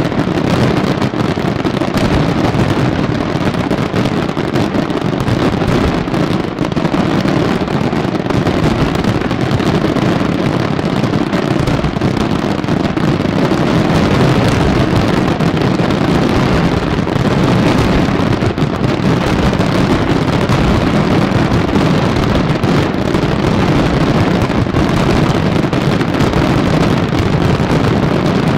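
Aerial firework shells bursting so fast they merge into one deep, steady rumble, with sharper reports scattered through it. It is a dense closing barrage with no pauses.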